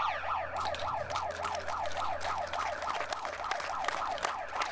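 Electronic siren wailing in a fast yelp, its pitch sweeping up and down about five times a second.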